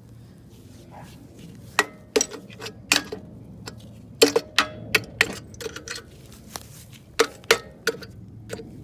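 Hammer blows on a stuck part of a Honda GC190 single-cylinder engine, about ten irregular strikes, some in quick pairs, each with a short metallic ring, knocking the part free during disassembly.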